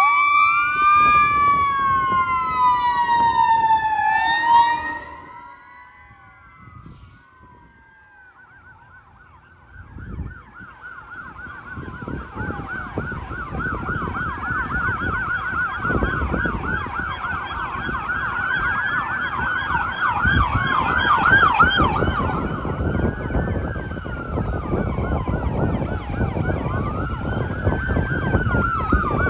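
Emergency vehicle sirens from responding fire and EMS units. A wailing siren falls in pitch and fades about four and a half seconds in. After a short lull a fast yelping siren builds, with slower wails from other units layered over it and heavy engine rumble beneath, loudest a little past the middle.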